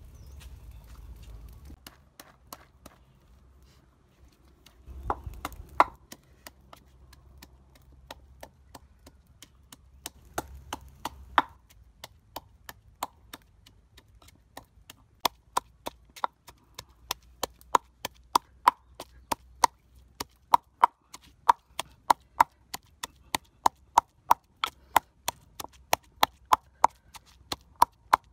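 Wooden pestle pounding red chilies in a clay mortar: sharp knocks, sparse and uneven at first, then steady at about two a second.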